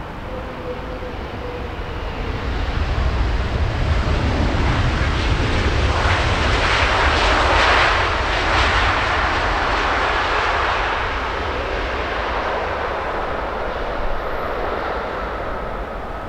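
Jet airliner on final approach passing close overhead to land: the engine noise and deep rumble swell to a peak about halfway through, then fade as it moves away, leaving a faint thin whine.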